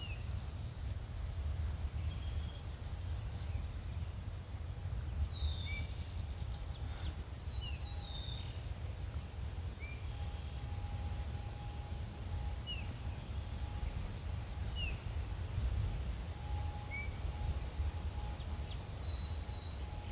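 Woodland birds calling on and off, short high chirps and slurred notes every second or two, over a steady low rumble.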